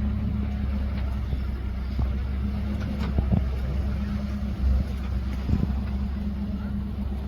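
Off-road vehicle engine running steadily at low revs, with a few knocks about halfway through.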